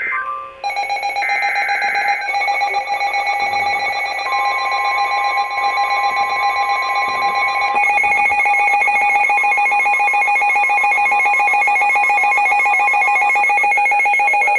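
Emergency Alert System alert: short bursts of warbling digital SAME header data tones open it, then a loud, steady electronic attention tone of several pitches at once. About eight seconds in, the tone grows louder and shifts in pitch.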